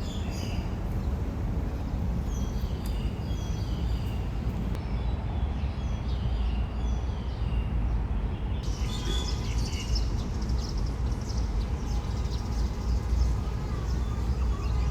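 Small birds chirping and singing in short phrases over a steady low rumble outdoors.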